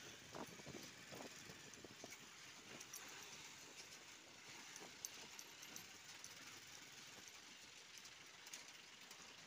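Near silence: the faint, even hiss of a motorcycle riding slowly, with no engine note standing out, and a few light clicks in the first two seconds.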